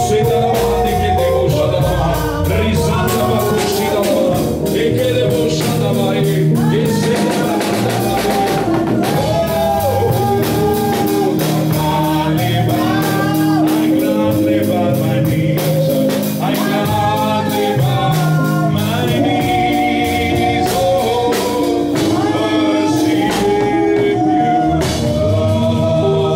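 Gospel music with singing over a steady beat and sustained instrumental chords.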